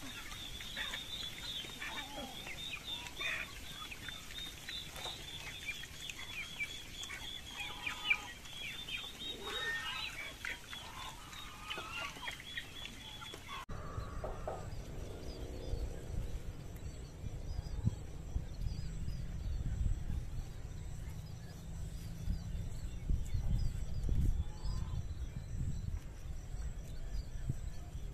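Chickens clucking with scattered chirps over them. After a cut about halfway through, an uneven low rumble of wind on the microphone with faint chirping above it.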